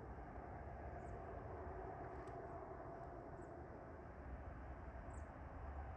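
Faint, steady low rumble of distant traffic, with a faint hum and a few faint short high chirps.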